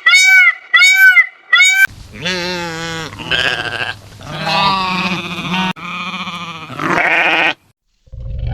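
Rapid repeated honking calls, about three a second, that stop about two seconds in. Then come four or five long, wavering bleats from sheep or goats, ending a second before the end.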